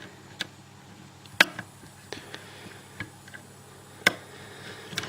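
Sharp metal ticks and clicks of a hook pick and tension wrench working in the keyway of an old Lockwood deadlock held in a vise, about six at irregular intervals, the loudest about a second and a half in.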